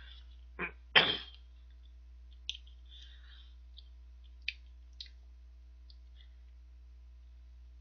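Eating at a table: two short, louder noises about a second in, then a few light clicks of wooden chopsticks against a ceramic plate as dumplings are picked up.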